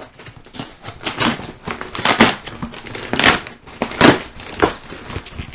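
Corrugated cardboard shipping box torn open roughly by hand, the flaps ripping and the kraft packing paper inside crinkling, in irregular rips with the loudest about two, three and four seconds in.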